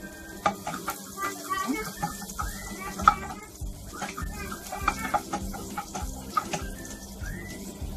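Wooden spatula stirring and knocking against a metal pot as chopped garlic fries in hot olive oil, with several sharp knocks, the loudest about three seconds in. Short rising-and-falling calls repeat in the background.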